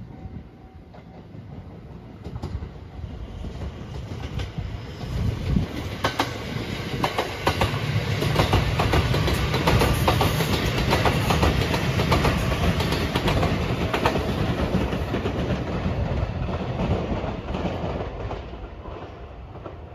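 Rapid Marine Liner electric multiple-unit train passing, its wheels clicking over the rail joints. It grows louder over the first several seconds, is loudest in the middle, then fades as it goes away.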